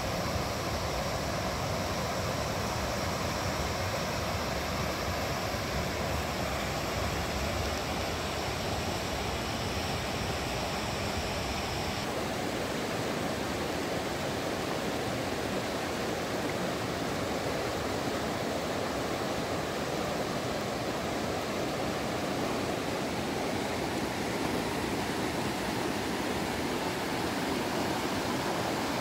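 Steady rush of a river's water pouring over rocks and cascades, a constant even noise. The tone shifts slightly about twelve seconds in.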